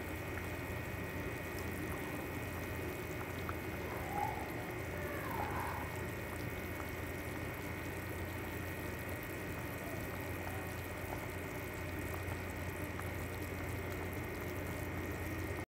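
Pot of potato and beef soup at a rolling boil, bubbling steadily over a constant low hum.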